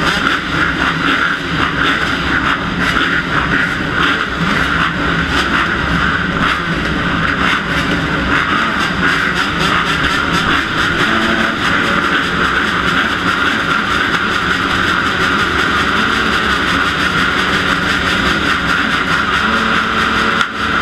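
A row of motocross dirt bikes running together at the start gate, the nearest a Kawasaki KX250F single-cylinder four-stroke; a loud, steady engine din.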